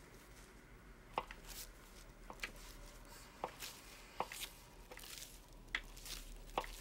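A knife cutting a doughnut into pieces on a paper napkin laid on a wooden bench: faint, sharp taps about once a second as the blade goes through and meets the wood, with soft paper rustles between them.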